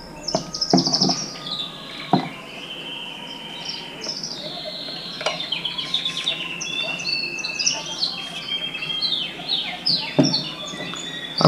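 Small birds chirping and twittering throughout, over clicks and knocks from quick-grip bar clamps being fitted and ratcheted tight around a glued pine box. The clamp noises are loudest in the first second, with single clicks at about two, five and ten seconds.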